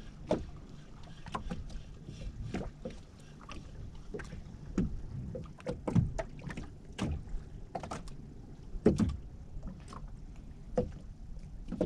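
Small waves lapping and slapping against the hull of a small boat, with irregular knocks and splashes over a low rumble of wind on the microphone.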